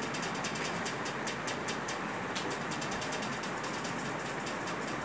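Rapid, even mechanical ticking, several ticks a second, over a steady hiss.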